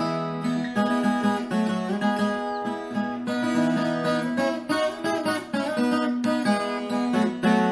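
Background music led by an acoustic guitar playing plucked and strummed chords.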